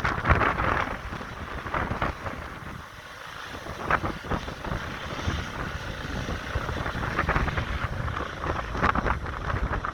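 Strong gusting wind buffeting the microphone, with a constant low rumble underneath and irregular surges of rushing noise.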